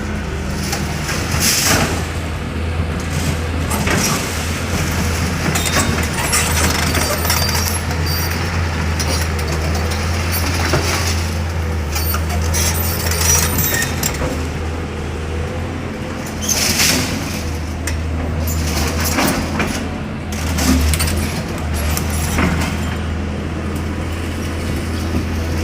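Heavy diesel demolition machinery running steadily with a deep engine hum, with a few louder rushes of noise about two seconds in and again around seventeen and twenty-one seconds in.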